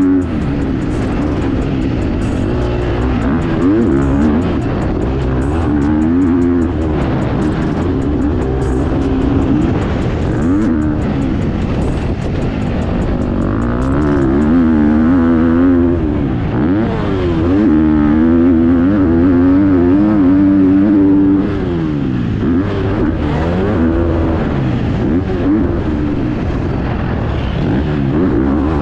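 Four-stroke motocross bike engine, a KTM 250 SX-F, revving hard and falling back again and again as it is ridden around the track, its pitch climbing and dropping with each throttle blip and gear change.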